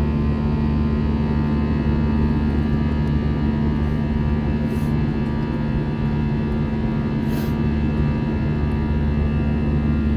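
Passenger jet engines droning steadily, heard from inside the airliner cabin as a constant hum with several fixed tones. Two short hisses break in about five and seven seconds in.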